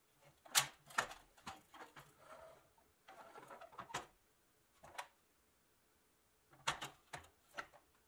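Rusty 1960s Nylint pressed-steel toy truck handled on a wooden workbench: scattered clunks and taps as it is pushed, turned and tipped onto its side, the sharpest about half a second in and a cluster near the end. A short stretch of its wheels rolling on the wood comes in the middle.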